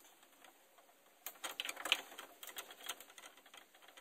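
Brake line and its fitting being handled and started by hand into the union, with a run of light metallic clicks and taps. The clicks are thickest from about a second in to near three seconds.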